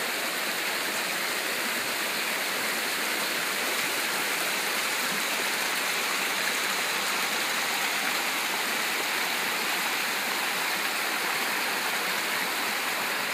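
Shallow mountain creek tumbling over rocks in small cascades: a steady rush and splash of running water.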